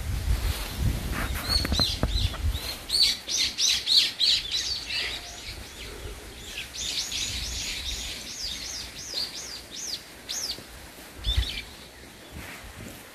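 Wild songbird singing two fast runs of repeated high, down-slurred notes. The first run starts about a second and a half in, the second about six and a half seconds in, and a few more notes come near the end. A low rumble on the microphone is heard in the first couple of seconds.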